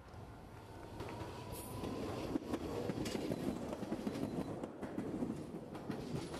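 Hankai Tramway Type 1001 three-section articulated tram passing close by at low speed, its wheels clattering over rail joints and points. The rumble builds for the first couple of seconds, is loudest in the middle, and is dotted with sharp clacks.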